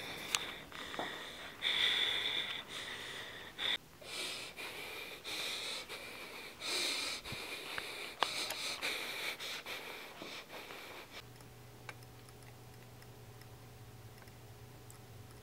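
A person breathing hard in uneven, wheezy, sniffling breaths. About eleven seconds in the breathing stops and a faint steady electrical hum is left.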